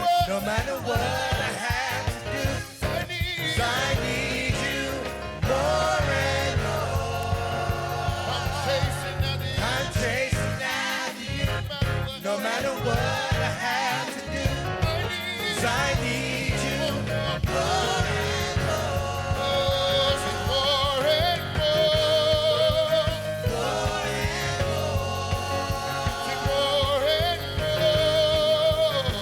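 Gospel music with singing over band accompaniment: a worship song with a lead voice and choir.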